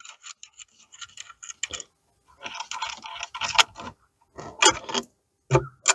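Small hardware being handled: bolts and nuts clicking and rattling against each other and against the guard as the A-arm guard is put in place. The clicks come irregularly, in short clusters.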